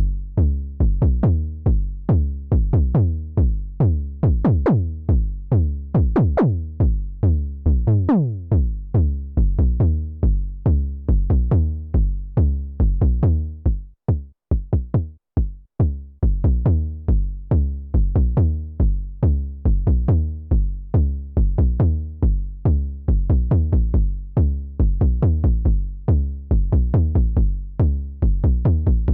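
KORG Volca Kick analog kick synthesizer playing a sequenced pattern of kick drums and deep bass notes, each hit dropping quickly in pitch. About eight seconds in, one note sweeps down longer, and around the middle the pattern stops briefly a few times before running on.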